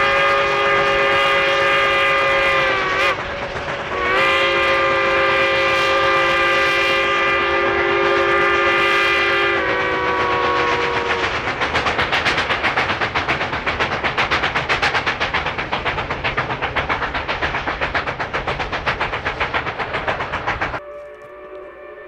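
K-28 narrow-gauge steam locomotive's several-toned whistle blowing two long blasts, one of about three seconds and one of about five, each sagging in pitch as it closes. Then the locomotive's exhaust beats fast and evenly as it works upgrade, until the sound drops abruptly near the end to a fainter whistle.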